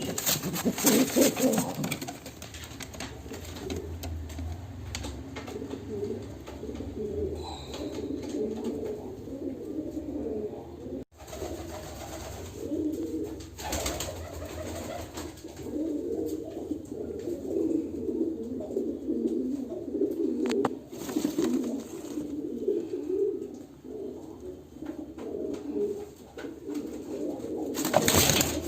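Pigeons cooing, a continuous low warbling, with brief louder noises near the start and near the end.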